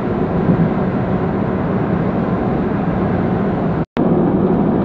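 Steady road and engine noise inside a car cabin while driving on an expressway. The sound drops out completely for a moment a little before the end, then resumes.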